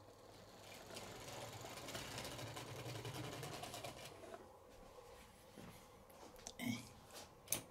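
HO scale model train running past on the track, its small electric motor and wheels whirring with a fine rapid ticking. It swells over the first seconds and fades by about four seconds in. Two sharp clicks near the end.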